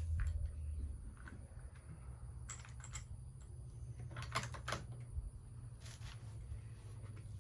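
Light clicks and clatters of gear being handled, in three short clusters about two and a half, four and a half and six seconds in, over a low steady rumble.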